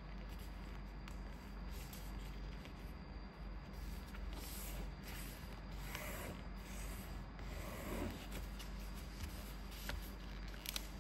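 A sheet of paper being handled and folded, with fingers rubbing and pressing along the creases and light scattered rustles and clicks.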